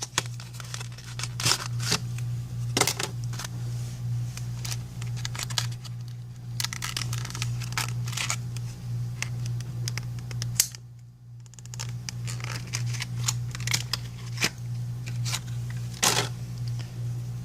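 Irregular small clicks, taps and scratches as a replacement iPhone 5c screen and small repair tools are handled on a workbench, over a steady low hum.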